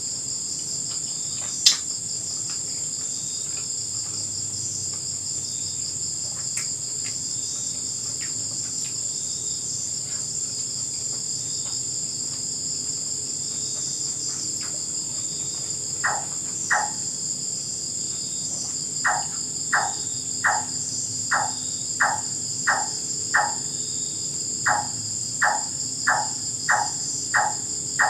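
Steady night chorus of crickets and other insects. From about halfway through, an unidentified animal gives a run of short, sharp calls repeated about one and a half times a second, growing louder toward the end. A single sharp click comes about two seconds in.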